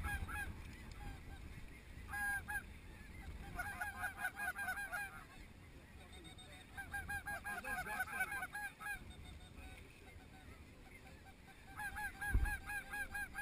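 Snow geese calling: clusters of quick, short, high honks that come in runs of several at a time, with quieter gaps between them. There is a dull thump near the end.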